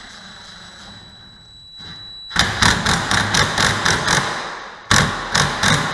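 Cordless impact driver tightening a lock nut onto a carriage bolt: a faint high whine as the nut runs on, then the hammer rattling in a burst of about two seconds, a short pause, and a second burst of about a second as the nut snugs down.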